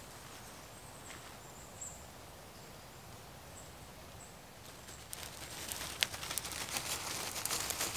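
Quiet forest background with a few faint, high bird chirps. About five seconds in, rustling and small crackles set in and grow louder, with one sharp click about six seconds in.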